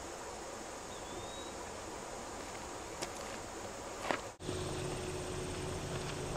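Faint steady outdoor ambience with insects buzzing in the background, broken by a couple of small clicks about three and four seconds in. After an abrupt cut, a steady low hum takes over.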